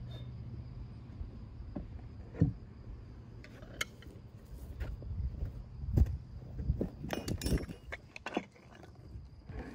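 Footsteps and handling noises: a scatter of knocks and light metallic clinks, busiest in the second half, as gear is moved around the log.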